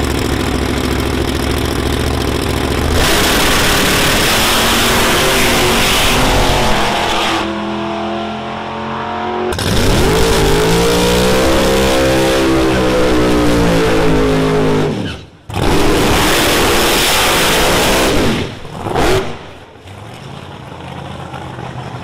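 Drag-racing engines at the starting line: an engine running steadily, then a loud blast of engine and tyre noise, then a car launching with its engine pitch climbing and falling away. The sound cuts off sharply about two-thirds of the way through, and another loud run follows before it quietens.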